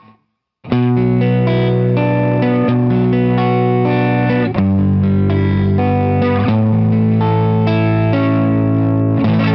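Telecaster-style electric guitar played through an amplifier on its neck pickup: sustained chords and notes ringing out, starting after a brief pause under a second in. The tone is a little muddy.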